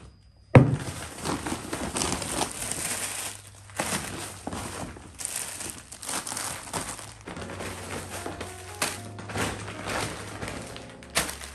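Plastic packets of instant noodles and snacks crinkling as they are handled and pulled out of a cloth shopping bag, with a sharp thud about half a second in as something is set down on the wooden counter.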